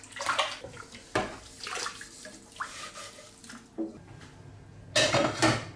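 Dishes being washed by hand in a kitchen sink: water sloshing and splashing, with irregular clinks and knocks of crockery, and a louder rush of water near the end.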